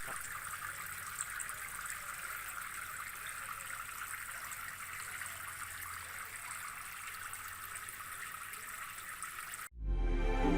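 Water trickling and splashing steadily from a homemade PVC-pipe fountain. It cuts off suddenly near the end and music starts.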